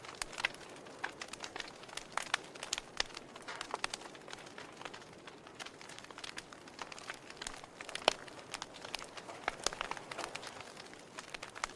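Wood fire in a fireplace crackling: irregular sharp pops and snaps, several a second in places, over a soft steady hiss.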